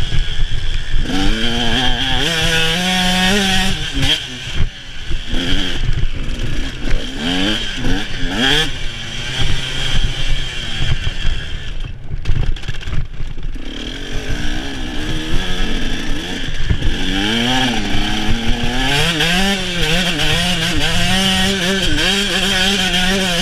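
Dirt bike engine on the throttle, its pitch climbing and falling as it revs up and backs off. It drops away briefly about four seconds in and again around twelve seconds. Wind rumbles over the microphone throughout.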